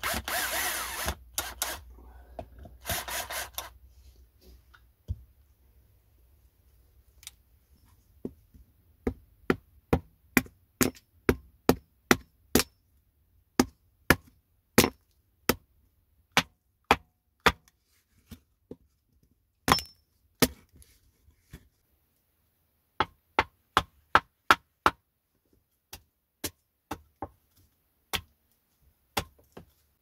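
Cordless drill running as it drives a screw through sheet metal into a log, in a burst at the start and again about three seconds in. Then a long run of sharp, separate knocks, one or two a second, with short pauses.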